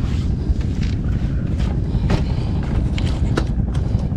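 Steady low rumble of wind buffeting the microphone, with a few faint scattered clicks.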